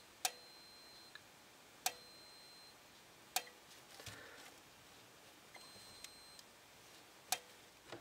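Simplex 4904-9301 sync strobe on steady power: four sharp clicks at uneven intervals and a faint high-pitched whine that comes and goes, from its flash circuit. This sync model does not flash properly without an interrupted current.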